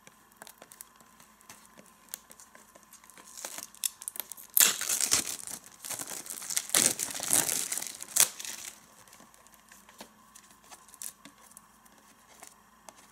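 Plastic shrink wrap being torn open and peeled off a VHS tape case, crinkling and crackling in several loud bursts between about four and nine seconds in. Faint picking and rustling of the wrap comes before and after.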